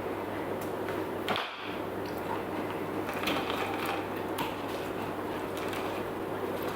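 Scattered light clicks and scraping as a lemon half and a lime half are squeezed for juice, over a steady low hum.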